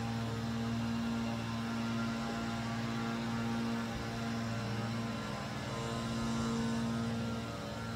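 A steady low electrical hum with many evenly spaced overtones, wavering slightly around the middle and near the end.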